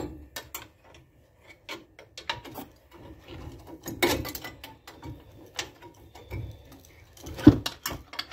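Irregular metal clinks and knocks as a stuck front brake caliper is worked loose from its mount, with one louder knock near the end.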